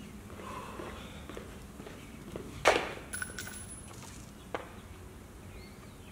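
A single sharp knock about halfway through, with a short ringing tail, then a lighter click a couple of seconds later, over a quiet outdoor background.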